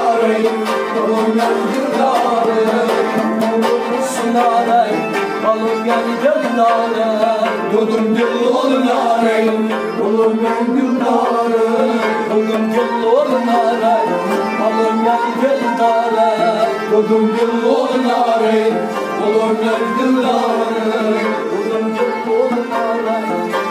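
Instrumental interlude of a folk song: a harmonium plays the melody, with hand-drum strokes keeping a steady rhythm.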